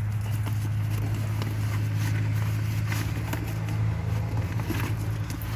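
A steady low hum throughout, with faint scraping, rustling and small clicks from a cardboard shipping box being handled and opened.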